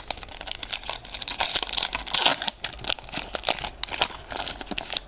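Foil trading-card pack wrapper crinkling and tearing as it is pulled open by hand.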